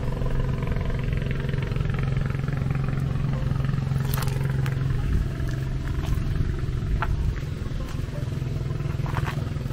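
A steady low engine drone, with a few sharp clicks over it, the clearest about four seconds in.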